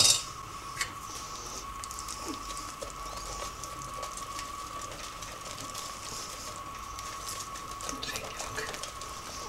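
Small wire whisk beating pumpkin cake batter in a bowl: a faint, soft wet patter with light ticks of the wires against the bowl. A steady faint high hum runs under it.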